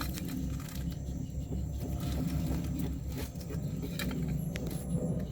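Jabuti (tortoise) making its mating call: a run of low, uneven clucking grunts from a male trying to mate, with a few sharp clicks.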